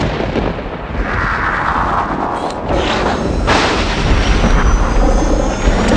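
Cinematic logo-sting sound design: deep booms and rumble layered with a swelling whoosh, and a sudden loud hit about three and a half seconds in.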